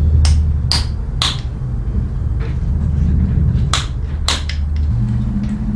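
About six sharp metallic clicks and taps from work on a motorcycle drive chain, in two groups, over a steady low hum that shifts higher near the end.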